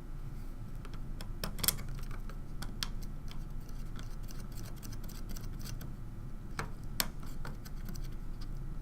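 Irregular small clicks and taps of plastic standoffs and parts being fitted by hand, with a sharper click a little under two seconds in and another about seven seconds in.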